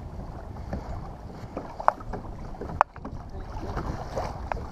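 Wind buffeting the microphone and water lapping against a kayak, with two sharp clicks about two and three seconds in. The sound drops out briefly after the second click.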